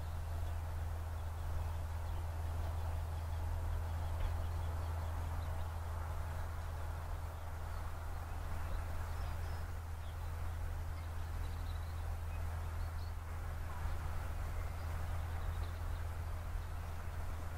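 Steady low rumble of LNER A3 Pacific 'Flying Scotsman' and its train running at a distance, with no exhaust beat heard as it drifts down the bank. Faint bird chirps come through in the middle.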